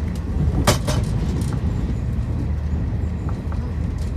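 Passenger train running along the track: a steady low rumble of the wheels and carriage, with one sharp clack about a second in.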